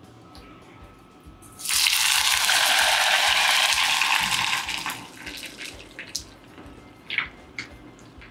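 A breaded beef steak deep-frying in hot oil. A sudden loud sizzle starts about two seconds in as it goes into the oil, holds for a few seconds, then settles to a quieter crackling bubble with a few light clicks.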